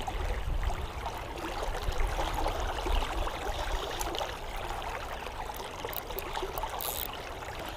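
Creek water flowing with a steady rushing sound, with a few faint short ticks partway through and near the end.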